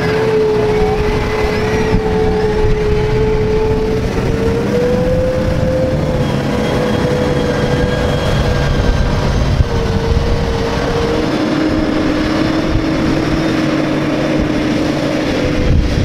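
Large tractor and forage harvester engines running, with a steady whine that shifts pitch a few times and drops lower about eleven seconds in.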